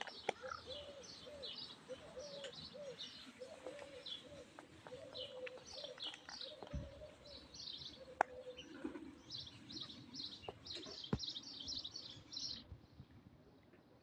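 Small birds chirping again and again, with a dove's low coos repeating through the first half. Two sharp clicks stand out about eight and eleven seconds in.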